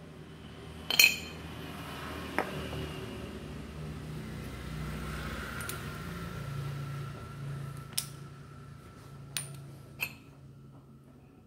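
Metal drill parts clinking and knocking as they are handled on a workbench during a rotary hammer drill repair: one sharp clink about a second in, then four lighter ones, over a faint low steady hum.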